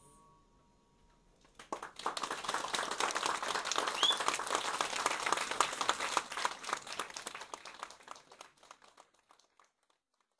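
Hand clapping, as from a few people applauding, starting about two seconds in and dying away near the end.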